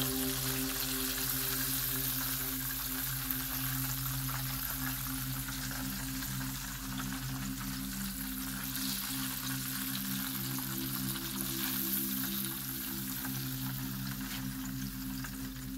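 Breaded fish fillets deep-frying in extra virgin olive oil: a steady, dense crackling sizzle, with a steady low hum underneath.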